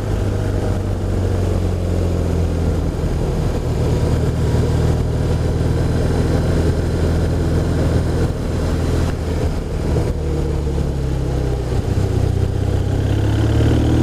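BMW R1200RT's boxer-twin engine running under way, its pitch dipping about two thirds through and rising again near the end, with wind and road noise.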